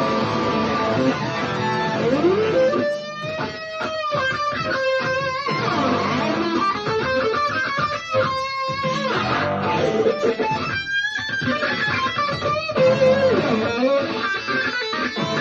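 Guitar improvising blues lead lines over a dirty blues backing track, with notes that slide and bend in pitch.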